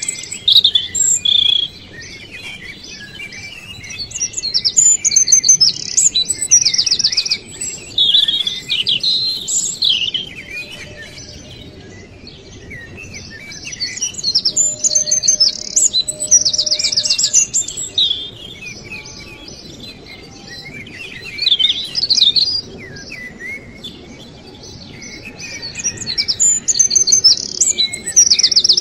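Birds chirping and singing in bouts a few seconds apart: high-pitched chirps and fast trills over a faint steady background hiss.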